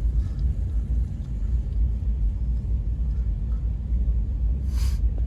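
Low, steady rumble of car engines and exhausts idling, with a brief hiss about four and a half seconds in.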